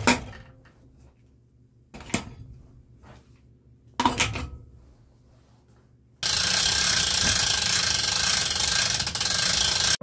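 Three sharp knocks about two seconds apart, each ringing briefly, then a power tool running steadily for about four seconds before cutting off abruptly.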